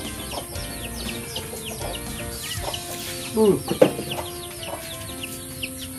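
Chickens in the yard: a steady run of short, high, falling peeps with clucking, and one louder call about three and a half seconds in.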